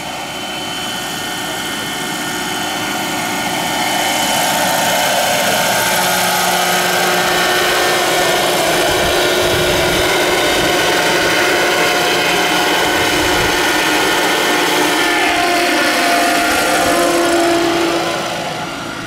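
Large electric RC model helicopter with a four-blade main rotor, driven by an Align 850MX brushless motor, flying past: steady motor and gear tones over rotor noise. The sound swells over the first few seconds and holds loud, then the tones slide down in pitch and the sound drops away near the end as it banks off.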